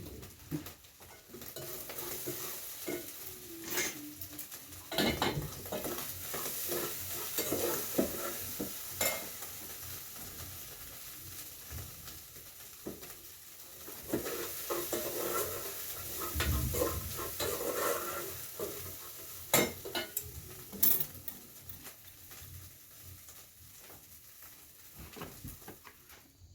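Food sizzling in a frying pan while being stirred, with a utensil knocking against the pan now and then.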